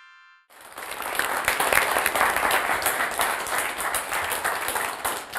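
Studio audience applauding, the clapping swelling in about half a second in and holding steady, after the last of a synthesized chime tone dies away.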